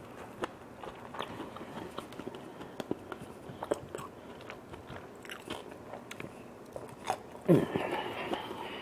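Close-miked eating: chewing and biting with many small mouth clicks and crunches. A louder, longer burst of sound comes near the end.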